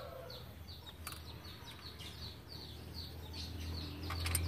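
A small bird chirping over and over, short falling chirps two or three times a second, over a low steady hum that grows louder near the end. A light click about a second in and a few more near the end.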